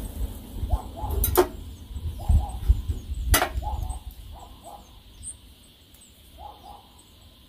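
A dog barking in the distance, short barks in pairs every second or two, over a heavy low rumble of wind on the microphone that eases off about halfway through. Two sharp snaps stand out, one a little over a second in and another a couple of seconds later.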